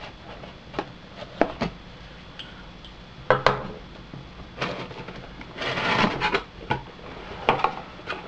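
A cardboard box being opened by hand: sharp clicks and scrapes as the seal is cut with a small blade and the flaps are worked loose, and a longer cardboard rustle about six seconds in as the box opens.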